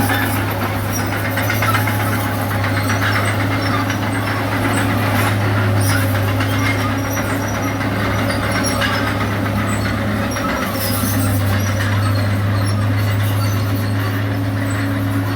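Bulldozer's diesel engine running steadily with a deep, even hum that dips briefly about ten seconds in, with scattered high squeaks over it.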